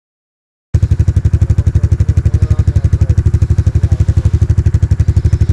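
ATV engine idling with a steady, fast throb, close to the microphone; it cuts in abruptly under a second in.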